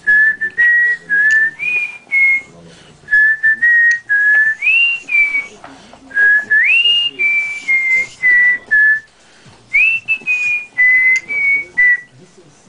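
A tune whistled in clear, pure notes, about two dozen short notes in four phrases, a few of them swooping upward, with brief pauses about 2.5, 5.5 and 9 seconds in.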